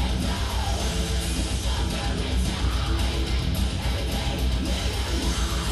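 Rock music with guitar, dense and continuous with a steady pulsing low end.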